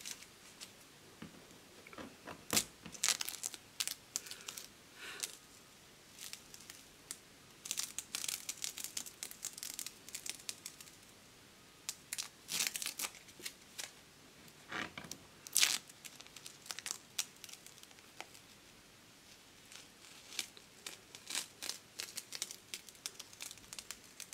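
Masking tape being peeled in strips off a painted aluminium plate: repeated short tearing rasps with crinkling as the peeled strips are handled. A couple of sharp clicks stand out, the loudest a little past the middle.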